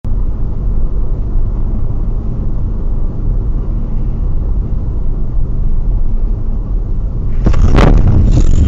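Steady road and engine rumble of a moving car heard from inside the cabin through a dashcam microphone. Near the end it turns louder and rougher, with one sharp crack.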